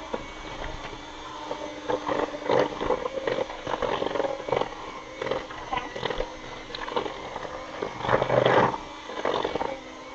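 Electric hand mixer running, its beaters churning flour into a wet cookie dough in a plastic bowl: a steady motor hum under an irregular clatter, loudest about eight seconds in.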